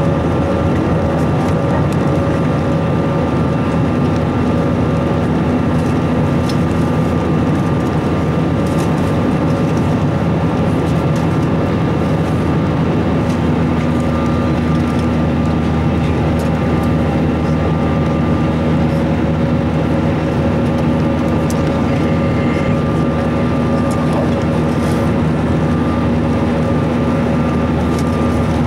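Steady jet engine and airflow noise inside the cabin of an Airbus A321 climbing after takeoff, with a constant hum under the noise. A low drone in the hum grows stronger about halfway through.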